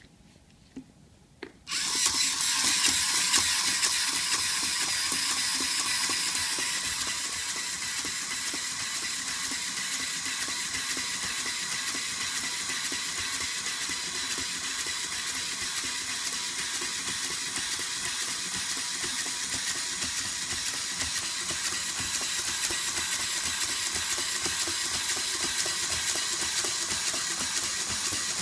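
LEGO Mindstorms EV3 crawler robot walking: its motors and plastic gear train whir and clatter steadily. The sound starts abruptly about two seconds in, after two small clicks.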